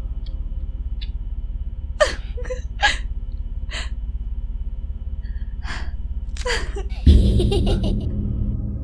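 Several sharp gasps and breaths over a low, fast-pulsing drone of film score. About seven seconds in, a loud low swell of music hits and then fades.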